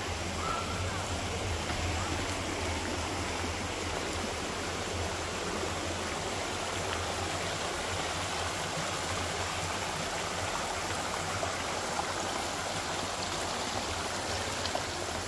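Small spring-fed stream running steadily over rocks, an even trickle of water.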